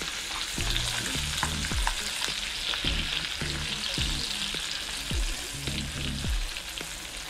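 Walleye pieces deep-frying in a pan of hot butter: a steady sizzle with fine crackling pops.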